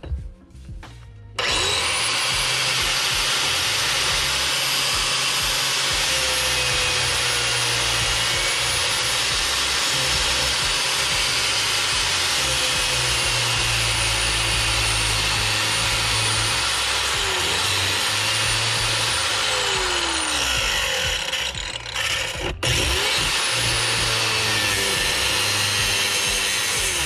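Angle grinder cutting through steel seat mounting in a car floor, starting about a second and a half in. Its high whine sags and recovers as the disc bites, easing off briefly about three-quarters of the way through.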